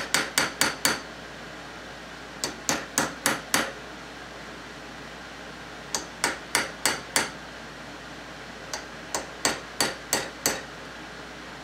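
Hammer tapping a steel punch held against a rifle barrel in a vise, in short runs of about five quick taps, roughly four a second, with pauses between runs. The punch is opening up metal mashed in around the chamber so that the stuck ejector can be drawn out.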